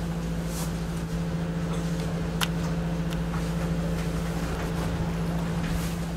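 Steady mechanical hum of a boat's machinery, a constant drone over a low rumble, heard inside the cabin, with a single sharp click about two and a half seconds in.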